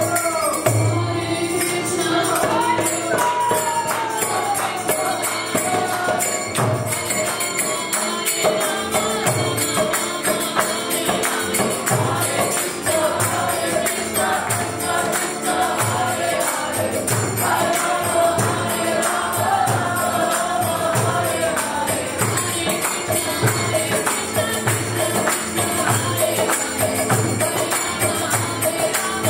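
Kirtan chant: a woman's voice leading on harmonium, with the group singing along. Small hand cymbals (kartals) jingle throughout, and a low beat repeats about once a second.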